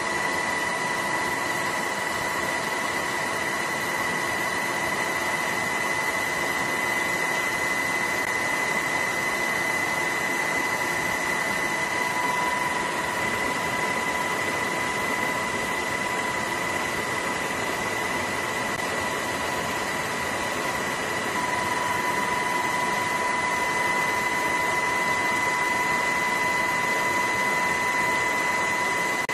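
Steady engine noise: an even rushing hiss with a constant high whine at two pitches, growing slightly louder about two-thirds of the way through.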